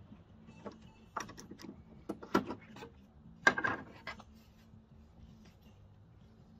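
A quick run of clicks and knocks, like wood and tools being handled on a workbench, with the two loudest knocks about two and a half and three and a half seconds in. A faint steady low hum sits underneath.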